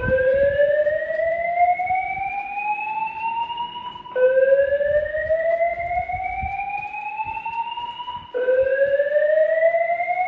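Fire alarm voice-evacuation speaker sounding a slow whoop tone: a loud rising sweep that climbs for about four seconds, then drops back and starts again, three times over.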